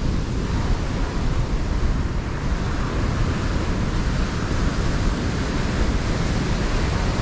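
Ocean surf washing on a sandy beach, with wind rumbling steadily on the microphone.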